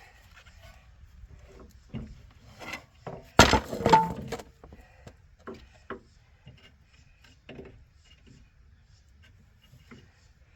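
Scattered knocks and scrapes of a front strut assembly being handled and worked into place while its bolts are lined up, with one louder clatter about three and a half seconds in.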